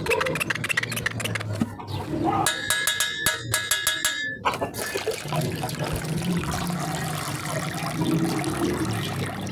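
Water sloshing and pouring, with a short stuttering buzzy tone a couple of seconds in.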